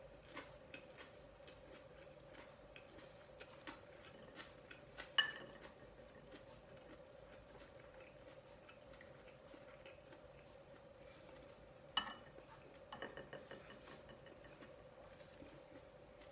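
A metal spoon clinking against a bowl at the table, with two ringing clinks standing out, the loudest about five seconds in and another about twelve seconds in. Between them are small tapping and eating clicks over a steady faint hum.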